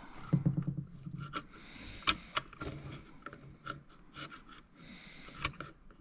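Needle-nose pliers scraping and clicking inside a plastic clutch pedal housing as its springs are pried out, with scattered small clicks and knocks.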